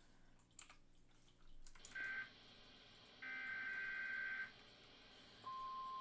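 Emergency Alert System tones, played back faintly: two bursts of the buzzy two-pitch SAME data header, a short one about two seconds in and a longer one of about a second and a half, then near the end a steady single-pitch weather-radio attention tone begins.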